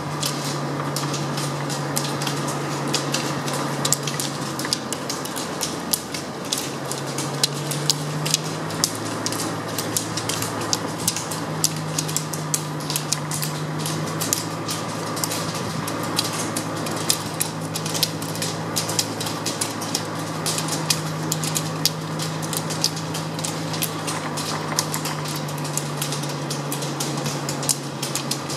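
Many roller-ski poles clicking and clattering on asphalt as a pack of skiers double-poles, a dense irregular patter of sharp taps over a steady low hum.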